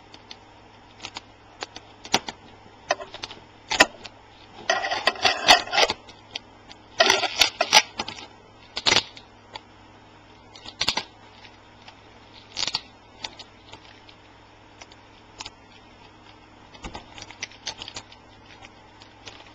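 Scattered light clicks and taps from hands handling an LCD panel and its metal frame, with two louder crinkling stretches about five and seven seconds in as tape is peeled off the panel's edge.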